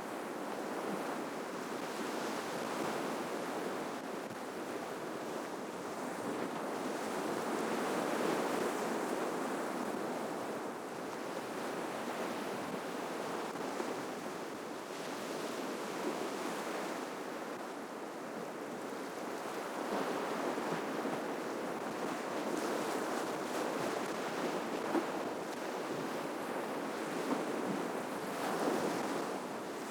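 Ocean waves breaking and washing on the shore, a steady surf that swells and ebbs every few seconds, with a few brief splashes near the end.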